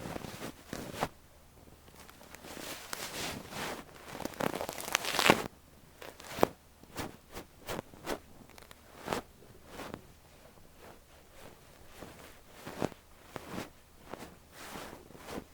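Fluffy down ear brush rubbing and stroking over an ear microphone, giving soft scratchy rustles: a dense run of strokes in the first five seconds, then short separate strokes about once or twice a second.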